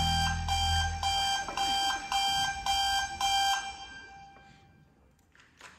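Electronic alarm-clock beeping, a pitched double-tone beep repeating about twice a second for some seven beeps, the last tone lingering and fading out. A low drum ring dies away under the first beeps.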